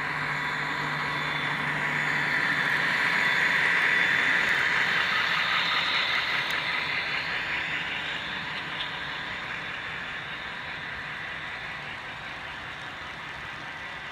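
HO scale model freight train rolling past on its track, a steady rushing rumble of the motor and wheels. It swells to its loudest about four seconds in as the locomotive passes, then slowly fades as the freight cars go by.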